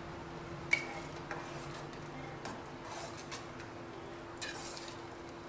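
Slotted metal spatula clinking and scraping against a steel pot while stirring vermicelli in hot sugar syrup, a handful of scattered clinks, the sharpest about a second in. A steady faint hum runs underneath.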